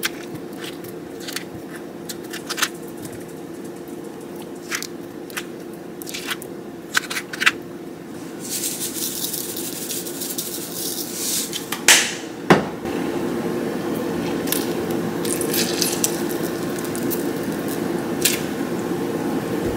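Guacamole prep at a kitchen counter: a metal spoon scooping avocado flesh from the skin and dropping it into a ceramic bowl, making scattered light clicks and taps. Near the middle comes a hissy rustle as salt goes over the slices, then two louder knocks, over a steady low hum.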